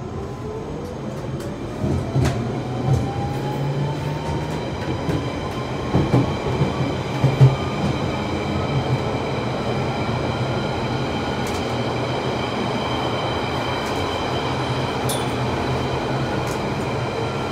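London Underground Central line 1992 stock train pulling away from a station, heard from inside the carriage. The traction motors' whine rises steadily in pitch as it accelerates over the first several seconds, then it settles into steady running noise with a few sharp clicks from the wheels and track.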